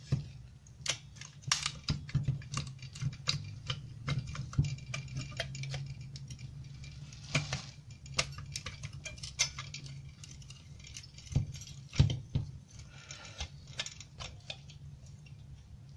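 Irregular metallic clicks, taps and clinks as a microwave-oven magnetron's sheet-steel frame, cooling fins and perforated filter box are handled and pried apart by hand. The loudest knock comes about twelve seconds in, over a low steady hum.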